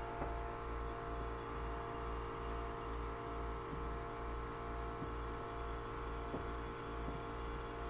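Steady machinery hum with a low throb pulsing about twice a second, with a few faint knocks from handling.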